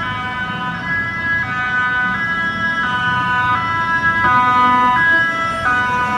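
Toyota Commuter ambulance van's siren playing a stepped multi-tone tune: several tones sound together and jump to new notes every half second to a second. It grows loudest about four to five seconds in, then drops off as the van passes, with road and engine noise underneath.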